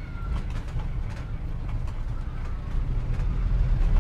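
Street ambience from the film's added soundtrack: a steady low rumble with faint scattered clicks and knocks.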